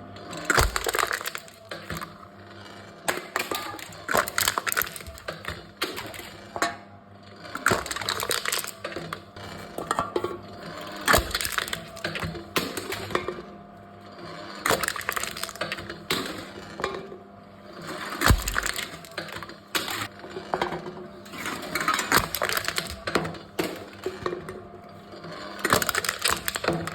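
Aluminium cans being crushed in a can-crushing machine: bursts of crunching and crackling metal every three to four seconds, over a steady low hum.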